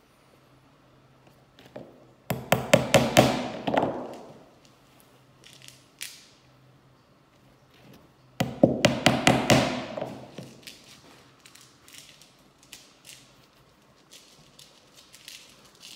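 Claw hammer driving tacks through the edge of a tanned sheepskin into an OSB board: two runs of quick, light strikes, one starting about two seconds in and one about eight seconds in, with faint handling clicks between.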